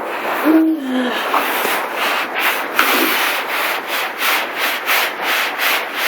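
Stiff scrub brush scrubbing a hosed-down patch of ground in quick back-and-forth strokes, about three a second. A brief pitched sound comes just before the scrubbing starts.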